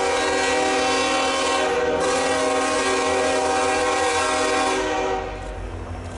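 Union Pacific SD70ACe locomotive No. 4141's air horn sounding one long, steady multi-note blast that cuts off about five seconds in, leaving the low rumble of the approaching train.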